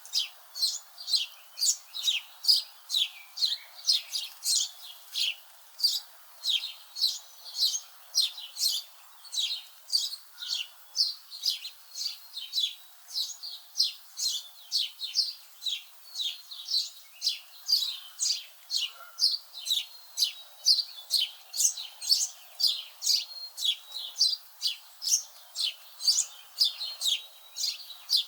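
Birds singing before dawn: an unbroken run of short, high, downward-sweeping chirps, about two a second.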